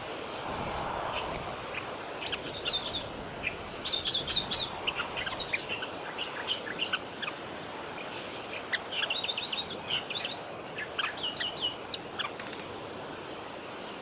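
White-plumed honeyeater nestlings begging at the nest with short, high-pitched peeps in quick runs while an adult feeds them, over a steady outdoor hiss.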